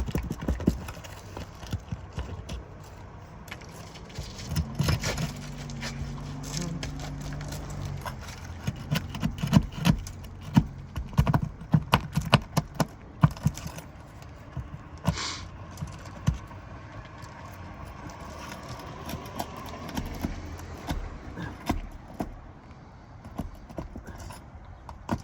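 Nails being worked out of asphalt roof shingles: irregular metallic clicks, taps and scrapes of a hand tool against nail heads and shingle. A low steady hum comes in about four to eight seconds in.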